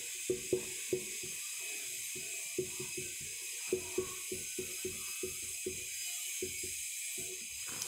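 Marker pen writing on a whiteboard: a fast, uneven run of short taps and scratchy strokes as letters are drawn.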